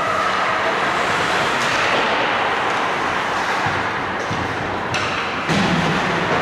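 Ice hockey play on a rink: a steady scraping hiss of skates on the ice, with a couple of sharp knocks about five seconds in.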